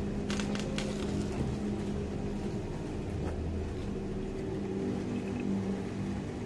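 Steady low hum of an engine running in the background, with a few light, sharp clicks about half a second in and another a little past three seconds.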